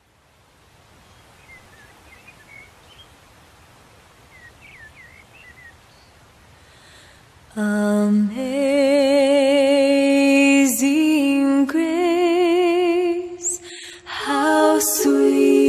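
Faint background hiss with a few small chirps, then about halfway through a voice starts singing long held notes with a wide vibrato, breaking off briefly near the end before carrying on.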